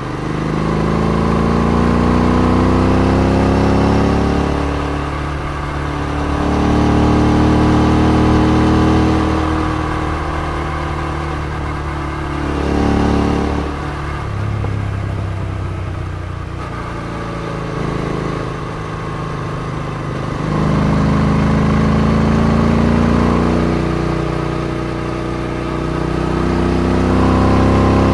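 Royal Enfield Interceptor 650's parallel-twin engine, fitted with aftermarket exhausts, under way. Its note rises as the rider opens the throttle out of the bends and drops as he eases off, several times over.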